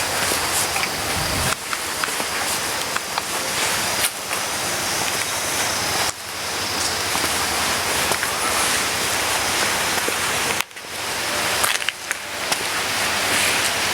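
Loud, steady rushing noise of wind over the microphone on a moving ATV. It breaks off abruptly for a moment several times.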